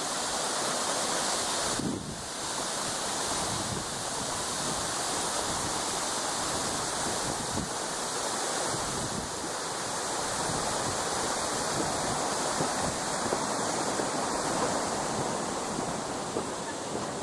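Steady rush of a mountain stream, with a brief dip in level about two seconds in.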